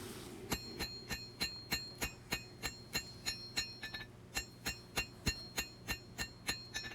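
Hand hammer striking a steel knife blade on an anvil while drawing out its bevels. The blows are steady, about three a second, each with a high ringing note, with a short break about four seconds in.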